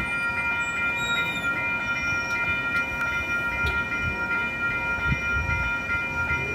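Railroad grade-crossing warning bells ringing in an even, rapid rhythm, about three strikes a second, as the crossing gates come down.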